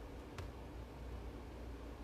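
Quiet room tone: a steady low hum and hiss, with one short click about half a second in.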